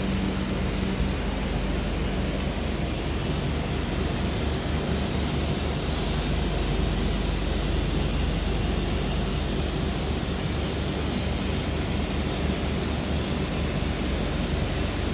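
Passenger train running along the track, a steady rush of wind and rumble with a low hum underneath.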